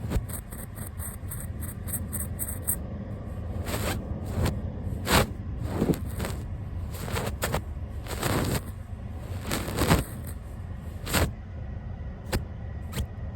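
Brush bristles swept across the camera and its microphone: a run of quick light ticks in the first few seconds, then a series of separate swishing strokes, over a steady low rumble.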